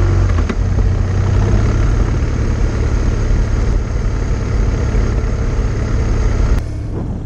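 Adventure motorcycle engine running steadily on the ride. Its level drops suddenly near the end.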